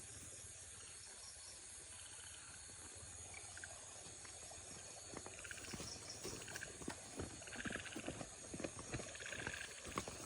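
Night insects chirring steadily. From about halfway they are joined by short, pulsed animal calls and a run of soft clicks and knocks that grow busier toward the end.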